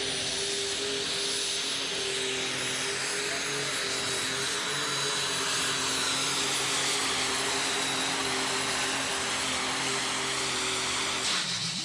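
Case IH super stock pulling tractor's multi-turbo diesel engine running flat out at steady high revs while it pulls the weight-transfer sled, with a high whine over the engine note. The sound breaks off sharply near the end.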